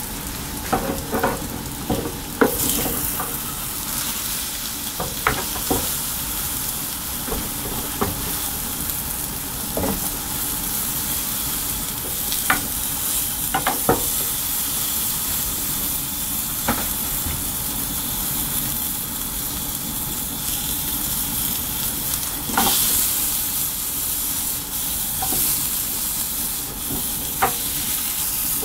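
Food sizzling in a small rectangular frying pan over a gas burner, a steady hiss with scattered sharp ticks and taps. In the second half a spatula scrapes and turns the food in the pan.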